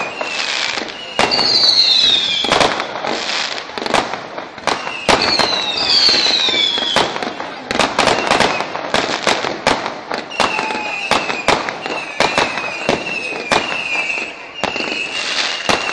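Fireworks display: a quick, irregular string of loud bangs and crackling bursts. Whistling shells give shrill whistles that fall in pitch in the first half, and a wavering whistle recurs through the second half.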